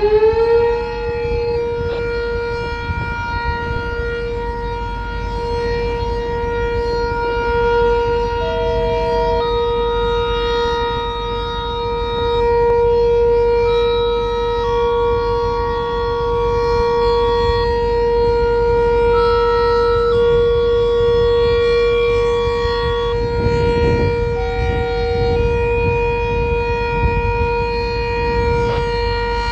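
Sentry 7V8 outdoor warning siren sounding during its scheduled test: it finishes winding up to full pitch right at the start, then holds one steady tone.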